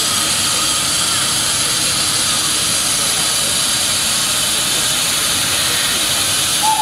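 Steady hiss of steam from BR Standard Class 9F steam locomotive No. 92240 standing in steam as it turns on a turntable, with a brief high squeak near the end.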